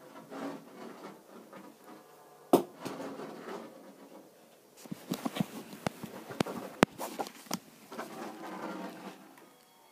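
Scratching and scraping noises, broken by a sharp knock about two and a half seconds in and a rapid run of clicks and knocks in the middle, then more scraping near the end.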